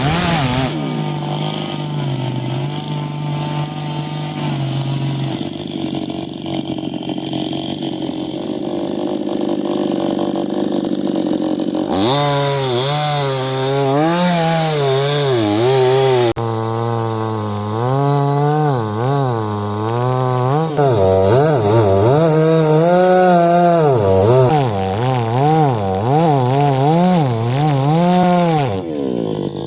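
Chainsaw running fairly steadily, then from about twelve seconds in cutting teak wood, its engine louder and its pitch repeatedly dipping and recovering as the chain bites. It drops away just before the end.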